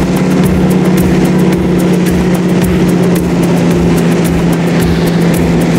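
Small aircraft's engine and propeller droning steadily in flight, heard from inside the cabin, with a low, even pulsing under the hum.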